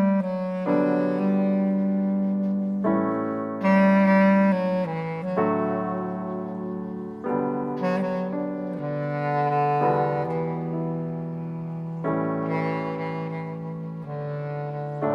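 Instrumental music: a slow melody of long held notes, each lasting a second or two, over sustained chords.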